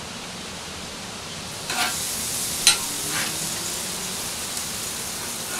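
Raw steaks laid on hot barbecue grill bars at about 200 °C, starting to sizzle about two seconds in and then sizzling steadily. There are a couple of sharp taps as the meat goes down.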